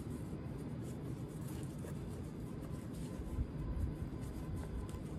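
Faint rustling and light taps of a wool sneaker and its laces being handled as it is pulled on, over a low steady rumble.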